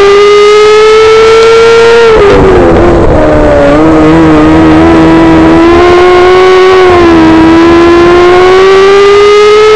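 Micro sprint car engine at race speed, heard from the cockpit. Its pitch climbs, falls sharply about two seconds in as the car slows for a turn, then climbs again through the second half.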